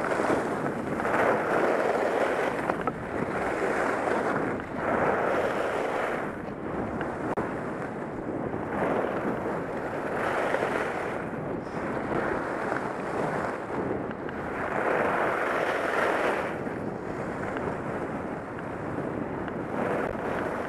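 Wind rushing over a helmet-mounted camera's microphone during a ski descent, mixed with skis hissing over soft groomed corduroy snow. The rush swells and fades every few seconds.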